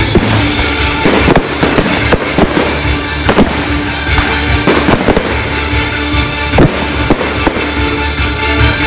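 Fireworks display: shells bursting in a rapid, irregular series of bangs and crackles, with music playing alongside.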